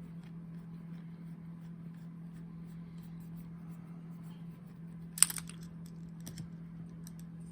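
Small clicks and taps of a Brinks deadbolt lock cylinder being handled and taken apart, with one sharp metallic click about five seconds in and a lighter one a second later, over a steady low hum.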